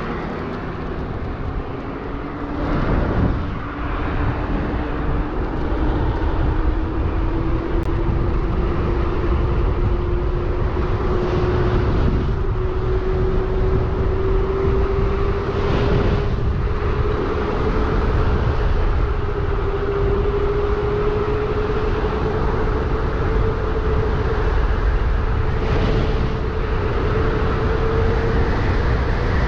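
Electric bike's QS 273 hub motor whining, the pitch climbing slowly and steadily as the bike gathers speed. Under it runs a steady low rush of wind and road noise.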